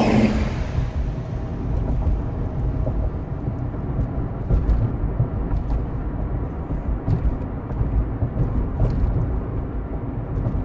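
Steady low rumble of a classic convertible car on the move, its engine and road noise heard from the open cabin with the top down.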